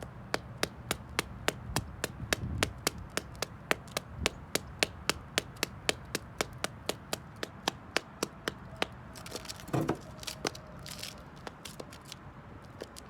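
High-heeled slingback shoes clicking on concrete in a steady stepping rhythm, about three sharp taps a second. About ten seconds in there is a short dull thump with a brief rustle.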